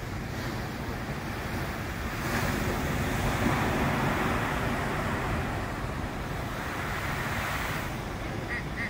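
Ocean surf breaking on the shore: a steady rush of water that swells about two seconds in and eases off near the end.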